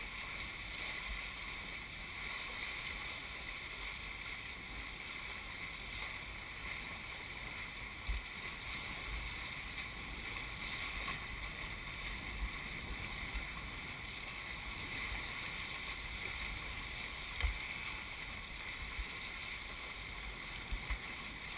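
Water rushing past the hulls of a Hobie 21SE catamaran under sail, a steady hiss, with wind buffeting the microphone in a few low thumps.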